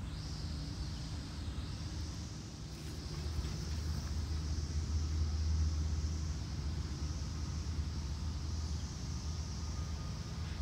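Outdoor background rumble that swells for a few seconds in the middle and then eases, under a steady high hiss.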